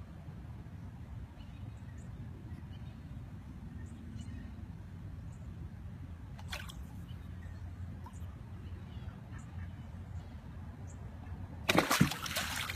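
A golden retriever plunges its head into the water to snatch a fish, making one loud splash near the end. Before it, only a faint, steady low background noise.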